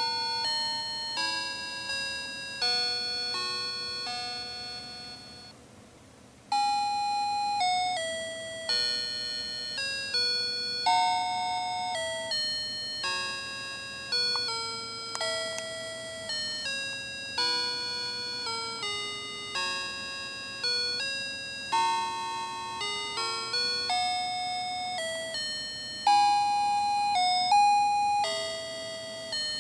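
Fisher-Price light-up baby toy playing an electronic melody of chime-like notes through its small speaker. One tune stops about five and a half seconds in, and after a second's pause the next tune begins.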